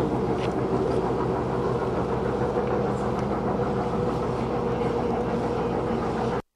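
Norfolk & Western Class J 4-8-4 steam locomotive No. 611 working upgrade in the distance, a steady rumble with a faint held tone. The sound cuts out briefly near the end.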